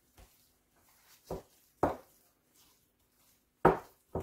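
Wooden spoon beating a thick sweet potato pudding batter in a mixing bowl: four short knocks as the spoon works the stiff batter and strikes the bowl, two close together a little over a second in and two more near the end.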